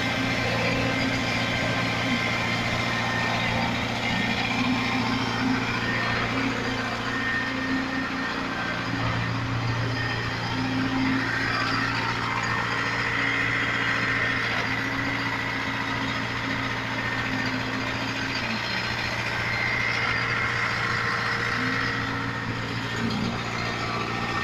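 Diesel engines of a truck-mounted concrete pump and a concrete mixer truck running steadily at a constant, unchanging drone while concrete is pumped.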